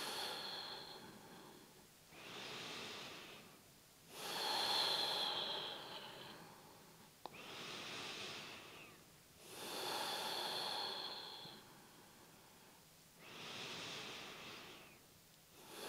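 A woman breathing slowly and deeply, about three full breaths in and out, each breath a soft rush of air lasting a couple of seconds with short quiet pauses between.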